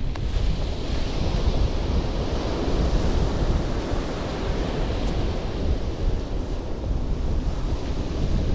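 Surf breaking and washing up a pebbly beach, steady throughout, with wind noise on the microphone.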